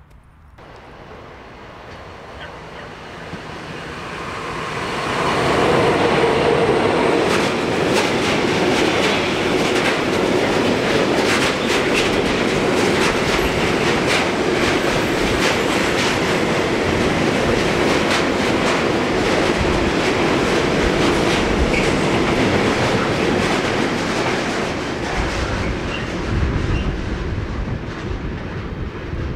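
Freight train of tank wagons passing close by: the noise swells over the first few seconds, then holds as a steady rumble with repeated clicking of wheels over the rail joints, easing slightly near the end.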